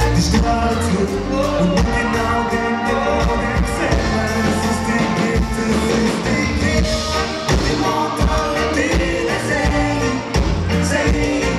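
Live pop band playing through a loud PA, with electric guitar, keyboards and horns over a steady drum beat, and a lead singer's amplified vocals.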